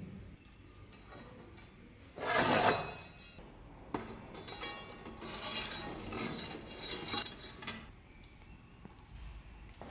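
Light metallic clinks and rattles of small metal parts and thin wire being handled, with a louder clatter about two seconds in and a run of ringing clinks in the middle.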